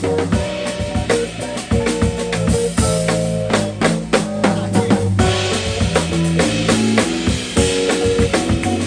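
Live jazz band playing: drum kit with keyboards and electric guitar, held chords over a steady groove. The cymbals open up about five seconds in.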